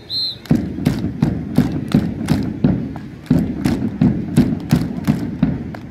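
A short whistle blast right at the start, then a drum beating a steady marching time, about three beats a second.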